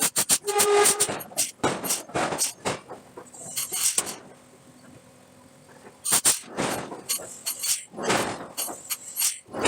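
Steel billets being forged: a run of heavy, irregular metal-on-metal clanks and strikes, some ringing briefly. The strikes ease off for about two seconds midway, then resume.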